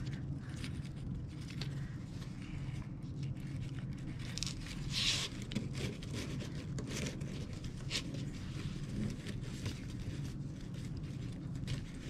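Dry grapevine twigs rustling and scratching with small clicks as wired berry picks are pushed and worked into a grapevine wreath, with one louder scrape about five seconds in. A steady low hum runs underneath.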